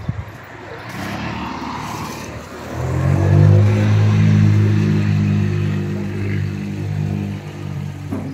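An engine starts running about three seconds in and keeps going at a steady low pitch, loud.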